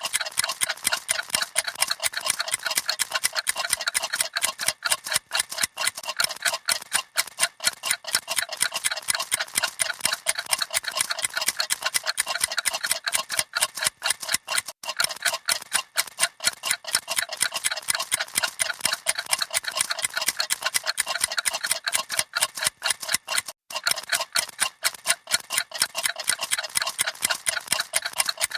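Several clocks ticking at once, a dense, rapid and uneven run of overlapping ticks with a brief gap about three quarters of the way through.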